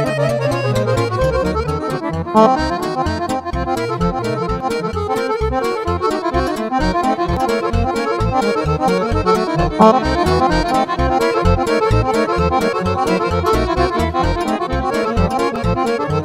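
Accordion playing fast, dense lăutărească runs over a steady pulsing bass beat.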